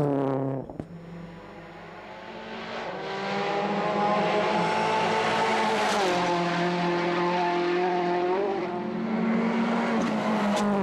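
Rally car engine under hard acceleration. The note falls and drops away just after the start, builds back over a couple of seconds, then runs at high revs over a hiss of tyre and road noise. The pitch drops for gear changes about six seconds in and again at the end.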